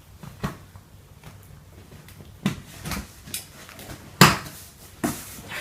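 A cardboard box being handled: a few scattered knocks and thumps, the loudest about four seconds in.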